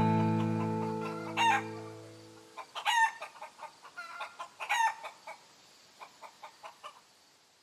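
A last strummed guitar chord ringing out and fading away over the first two and a half seconds, with chickens clucking over it. The louder chicken calls come about one and a half, three and five seconds in, followed by softer clucks that die away.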